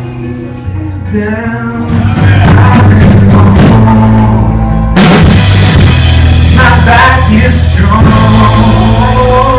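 A live band playing loud: drum kit, bass and guitars, with a man singing. The music builds about two seconds in and comes in hard with a big drum hit about halfway through.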